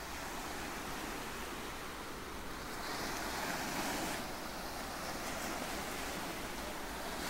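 Ocean surf: waves breaking and washing in, a steady rushing hiss that swells louder as a wave comes in about three seconds in.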